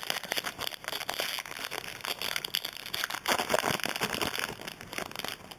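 Foil trading-card pack wrapper crinkling and tearing as it is opened by hand: a dense run of small crackles that stops shortly before the end.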